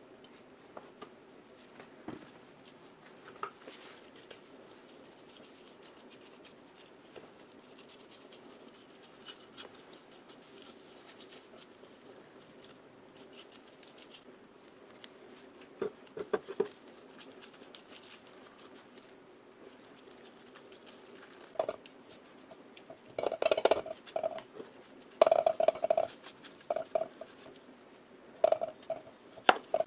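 Small metal parts and hand tools clinking, knocking and scraping during bench work on an electric motor. The sounds are sparse at first and become louder clattering clusters in the second half, over a faint steady hum.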